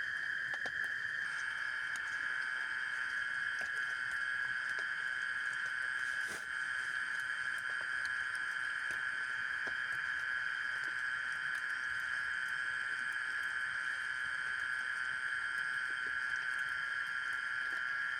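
Scattered raindrops pattering on a tent, over a steady high-pitched drone.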